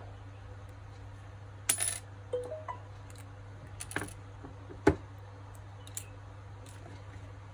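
Small sharp clicks and taps of a metal SIM ejector pin and a phone's SIM tray being handled and set down on a wooden table. The first click has a brief metallic ring, and the loudest is a thump about five seconds in, all over a steady low hum.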